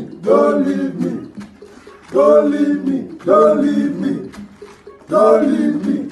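A group of men chanting together in unison: four short, loud shouted phrases of about a second each, with brief gaps between them.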